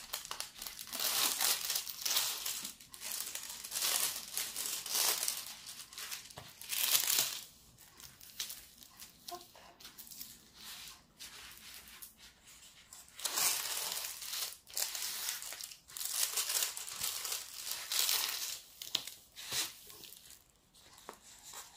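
Clear plastic protective film crinkling and rustling as it is laid back over a diamond painting canvas and smoothed flat by hand. It comes in irregular bursts, with a quieter few seconds in the middle.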